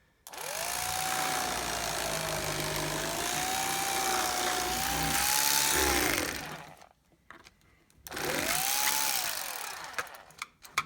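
A small electric power tool motor spinning up, running with a loud hiss for about six seconds, and winding down. About two seconds later there is a second, shorter burst that spins up and down again.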